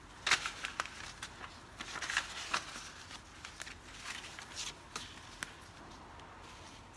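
Old paper photographs being shuffled and handled by gloved hands, with soft rustles and irregular light clicks of photo card against card.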